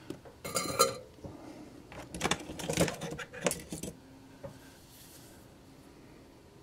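Small model-locomotive parts clicking and rattling as they are handled by hand: a burst about half a second in, and another from about two to three and a half seconds.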